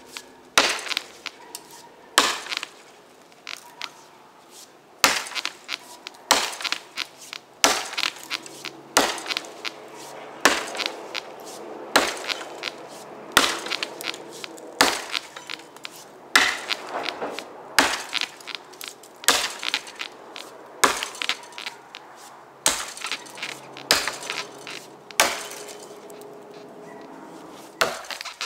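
Boy's axe with a steel trade-axe-pattern head chopping into a fallen beech log, a steady run of sharp chops about one every second and a half.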